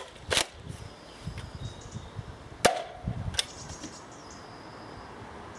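Adventure Force Sentry X2 foam-ball blaster firing: one sharp crack about two and a half seconds in, with a short ringing after it and lighter clicks just before and shortly after.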